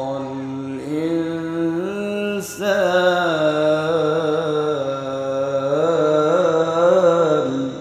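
A man reciting the Quran in the melodic tajweed style, holding long notes with gliding ornaments, with a brief break about two and a half seconds in.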